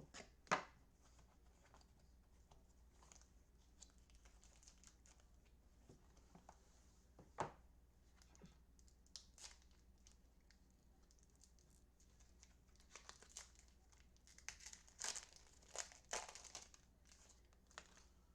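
Faint tearing and crinkling of packaging as a sealed trading-card hobby box is opened by hand, with sharp taps about half a second in and about seven seconds in and a run of rustling near the end.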